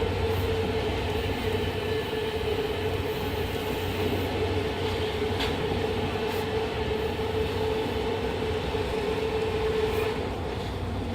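Fukuoka City Subway 2000-series refurbished train with Hitachi hybrid SiC inverter drive, running in a subway tunnel: constant running noise with a steady whine from the traction equipment that sinks a little in pitch and fades out about ten seconds in.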